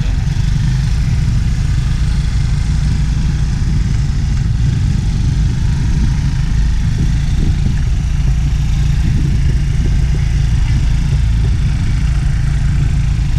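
Motor scooter engine running steadily at low speed, with a continuous low rumble.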